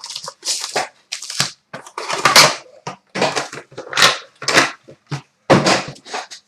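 Trading card box and pack wrappers being torn open and handled, in a run of short, irregular rips and crinkles.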